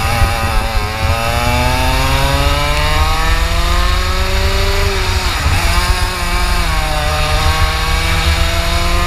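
A 125 cc two-stroke kart engine at full throttle, its pitch climbing steadily as the kart accelerates, with a brief dip about five and a half seconds in before it climbs again.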